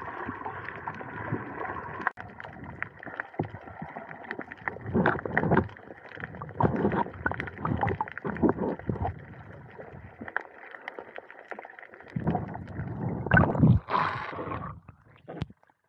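Water sloshing and splashing in irregular surges, heard through a snorkeler's camera, with a louder splash near the end.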